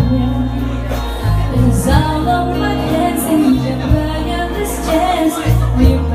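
A live pop ballad: a female singer over a band, with held bass notes that change in steps beneath the melody.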